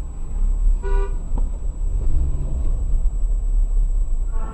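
A short car horn toot about a second in, over the steady low rumble of a car engine running at standstill.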